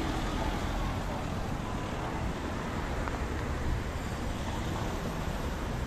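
Road traffic noise: cars passing on a city street, with wind rumbling on the microphone.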